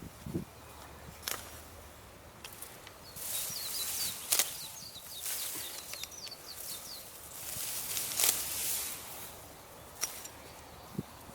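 Weeds being cut by hand in a vegetable field: two long rustling swishes, each ending in a sharp snap, with a few lighter clicks between. A small bird twitters in quick high chirps through the middle.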